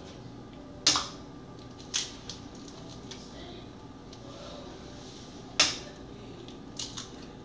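Eggs being cracked against the rim of a stainless steel stand-mixer bowl: two sharp knocks, about a second in and about five and a half seconds in, with a few lighter taps and clicks between and after.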